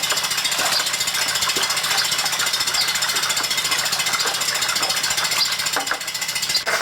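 A steady, fast mechanical rattle over a low hum: a machine running without pause.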